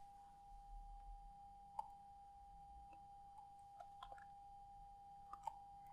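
Near silence: a faint steady electrical hum with several faint computer mouse clicks.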